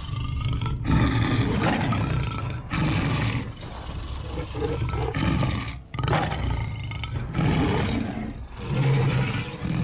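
Lion roaring: several loud, deep roars in a row, separated by short breaks.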